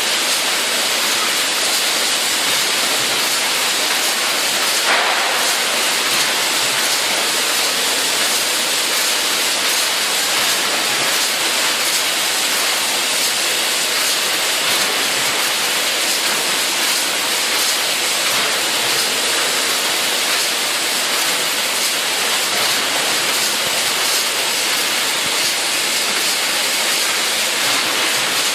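Steady, even hissing noise of packaging machinery running, with one brief click about five seconds in.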